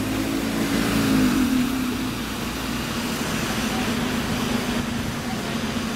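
Double-decker bus engines running close by at a bus station, a steady drone over traffic noise that dips slightly in pitch about a second and a half in.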